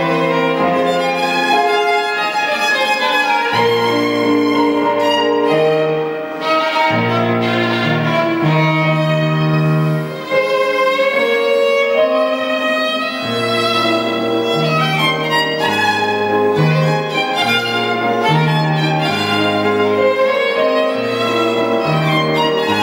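Violin playing a melody with electronic keyboard accompaniment, held low notes and chords changing every second or two underneath.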